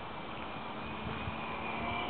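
Motor of a small radio-controlled Cessna model aeroplane in flight, a faint steady whine that grows louder toward the end, over a steady wind-like hiss.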